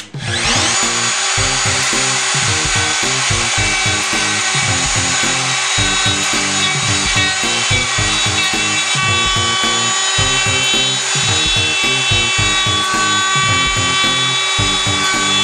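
Festool plunge router switching on, its whine rising over the first second as the motor spins up, then running steadily at full speed while it cuts into the wooden board.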